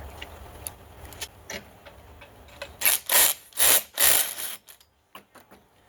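Hand tools working on an old Homelite gear-drive chainsaw being taken apart: small scattered metal clicks and ticks, then three short loud rasping bursts about three to four seconds in.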